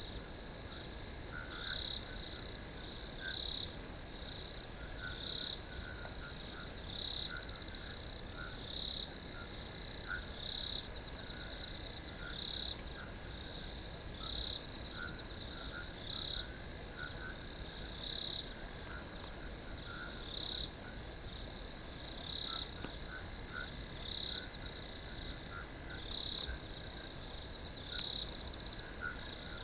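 Crickets chirping in a steady, high-pitched chorus, with louder chirps standing out every second or two and a fainter, lower chirping underneath.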